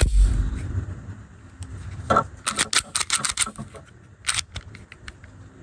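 A dull thump, then a quick series of sharp metallic clicks and rattles from a Smith & Wesson M&P Shield .45 pistol being handled just after reassembly, with one more click near the end.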